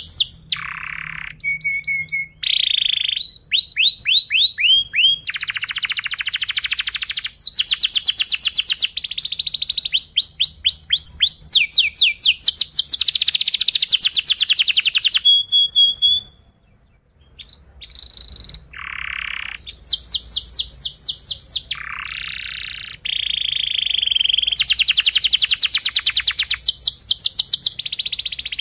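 Yellow domestic canary singing a long song of tight, fast rolls of rapidly repeated falling notes, trills and short chirps, broken by a brief pause a little past the middle.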